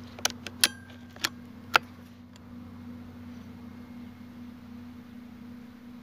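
About six sharp mechanical clicks in the first two seconds, one with a brief metallic ring, from handling an air rifle and its scope set-up, then a steady low hum.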